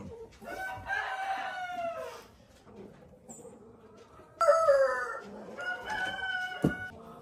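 Rooster crowing twice, each crow a long call falling in pitch at its end. The second crow starts suddenly about four seconds in and is louder. A sharp click comes near the end.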